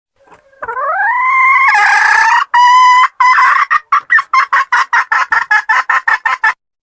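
A female red junglefowl (wild hen) cackling: a long drawn-out note that rises in pitch, then a fast run of short clucks, about four a second, that stops abruptly.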